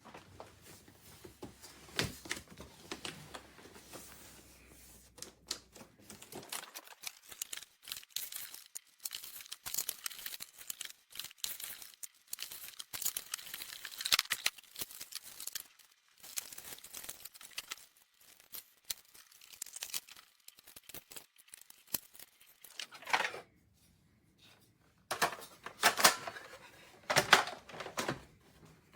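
Irregular clicking, tapping and crinkling of objects being handled, with a few louder clattering bursts near the end.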